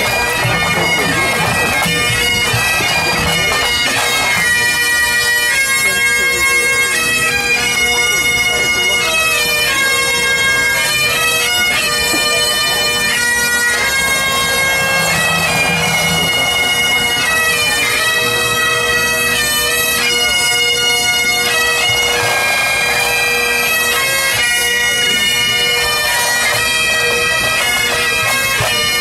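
Pipe band playing: a massed section of Great Highland bagpipes sounding a melody over steady drones, with pipe-band snare drums and a bass drum.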